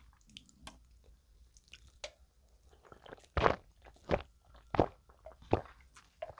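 A person gulping soda from a can, four loud swallows about two-thirds of a second apart starting about three and a half seconds in, after a few faint clicks.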